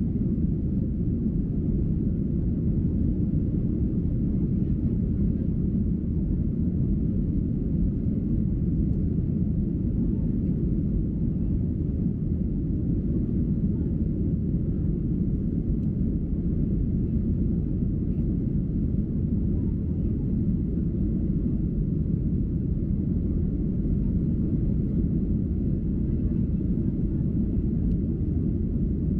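Steady low rumble of a jet airliner's engines and rushing air heard inside the cabin during the climb after takeoff, unchanging throughout.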